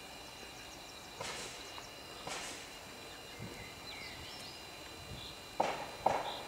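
Outdoor trackside background with small birds chirping and two soft rushing swells early on, then two sharp knocks close together near the end.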